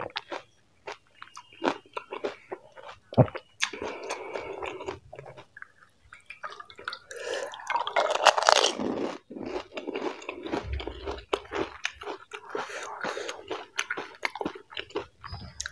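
Close-miked chewing of pani puri: scattered crunches and mouth clicks, then a long loud crunch from about seven to nine seconds in as a whole puri goes into the mouth, followed by steady crunchy chewing.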